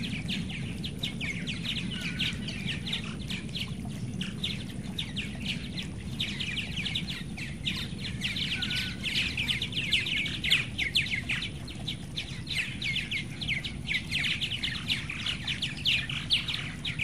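Purple martins chattering at their gourd colony: a steady stream of quick chirps, busier from about six seconds in. A low steady hum sits underneath.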